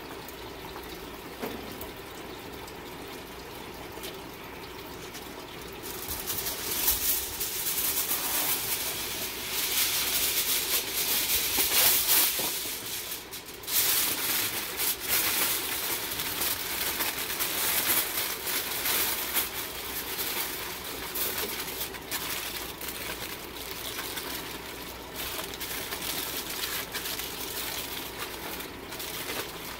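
Aluminium foil crinkling and rustling as it is folded and pressed tightly around a cut of meat, a dense crackle of small sharp ticks that starts about six seconds in.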